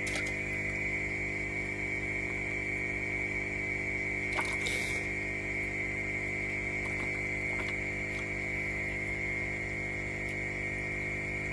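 Steady electrical hum with a high-pitched whine, under faint water movement and small clicks as a hand handles freshwater crayfish in a plastic bucket of water, with one brief louder scrape about four and a half seconds in.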